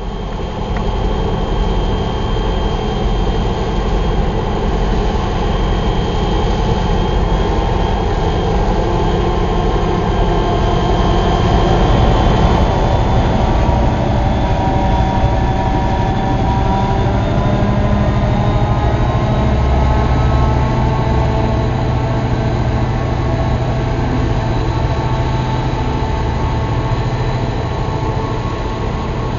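HO scale model train of Rio Grande diesel locomotives pulling coal hoppers, running steadily past with a continuous diesel engine sound over a low rumble.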